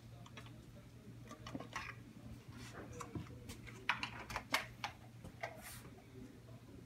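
Light scattered ticks and rustles of a hand handling a hide and loose substrate inside a plastic tarantula enclosure, with a cluster of sharper clicks about four seconds in. A low steady hum runs underneath.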